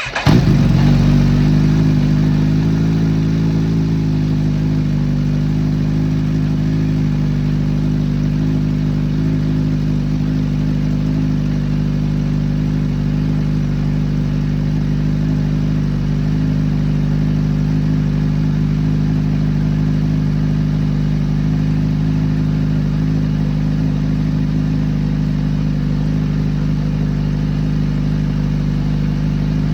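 Kawasaki Z H2 supercharged inline-four motorcycle engine catching and starting, running a little higher for the first few seconds and then settling into a steady idle. It is running just after an oil change to circulate the fresh oil through the new filter.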